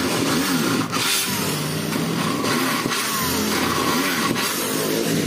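Corded electric drill running under load, boring into aluminium sliding-door frame profiles. The motor's pitch dips and rises several times.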